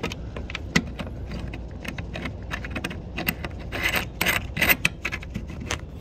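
Scattered clicks and taps with a short rattling scrape about four seconds in: a liquid-tight conduit connector being worked through a hole in a sheet metal panel while its lock ring is threaded on from the inside.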